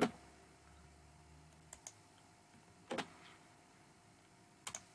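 Computer mouse clicking: a handful of sharp clicks, two of them coming as quick pairs, as the program's windows are closed and navigated.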